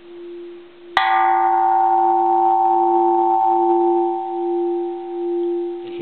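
Bronze Japanese Buddhist temple bell, cast in 1625, struck lightly once about a second in. A bright cluster of ringing overtones fades over a few seconds above the bell's steady low hum, which wavers slowly in loudness.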